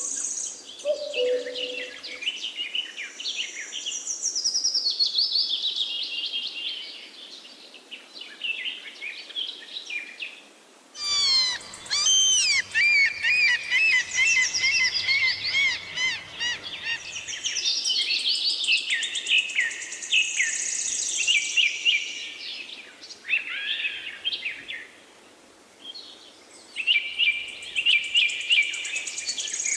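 Songbirds singing, one varied phrase of whistles, chirps and trills after another. About eleven seconds in the sound changes abruptly to a denser, fast warbling song with rapid up-and-down notes over a faint low hum, which fades out after several seconds.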